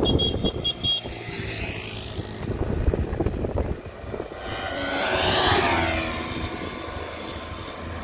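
Yamaha R3's parallel-twin motorcycle engine running under acceleration through gear changes, its pitch rising and falling as it swells to a peak about five and a half seconds in, then fades.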